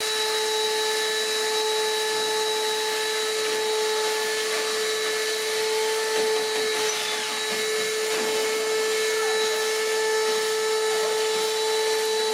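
An electric motor in a workshop tool running steadily at constant speed: an even whine over a hiss, with no change in pitch or level.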